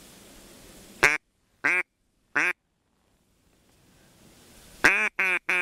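Duck quacking: three single, nasal quacks about a second apart, then a quick run of quacks starting near the end, the first of the run the loudest.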